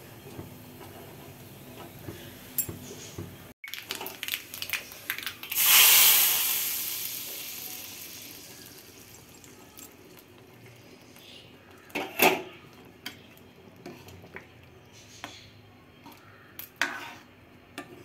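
Faint crackle of spices frying in hot oil in a small steel tempering pan. Then a hot tempering of oil, mustard seeds, cumin and dried red chillies is poured into the cooked dalma: a loud sizzle about six seconds in that dies away over a few seconds. Sharp metal clanks of the pan and ladle against the steel wok follow, the loudest about twelve seconds in.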